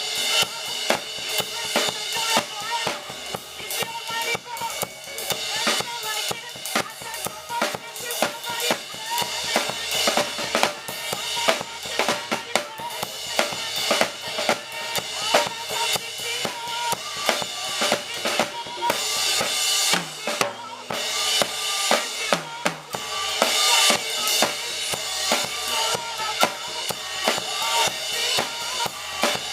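Live gospel band music driven by a drum kit, with bass drum and snare keeping a busy, steady beat.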